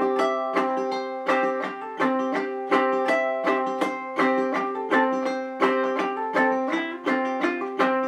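Ukulele played clawhammer style: a melody picked out on the strings, each note followed by a strum and a thumb stroke on the top string, in a steady bouncing rhythm with a few hammer-ons.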